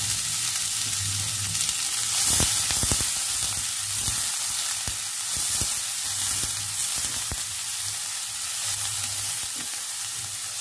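Chopped onions and crushed garlic sizzling steadily in hot oil in a steel pan, sautéing. A spatula scrapes and knocks against the pan as they are stirred, most often about two to three seconds in.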